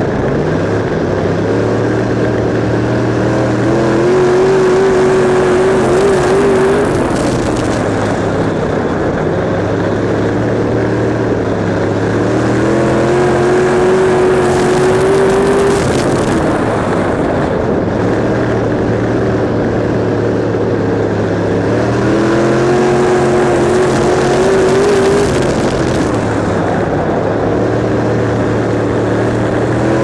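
Canadian Modified race car's engine heard from onboard, revving up along each straightaway, holding high, then easing off into the turns, a rising-and-falling cycle about three times.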